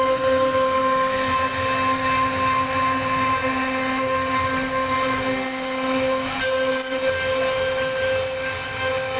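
CNC router spindle whining at a steady high speed while its bit carves a relief pattern into a wooden door panel, with the rough rasp of the cutter in the wood underneath.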